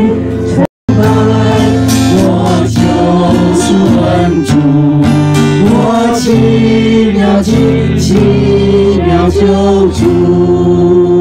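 A group singing a Chinese hymn to guitar accompaniment, with voices amplified through microphones. The sound cuts out for a moment a little under a second in, then the singing carries on.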